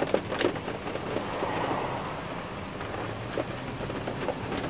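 Raindrops striking the truck, heard from inside the cab: a steady hiss of rain with scattered individual drop ticks.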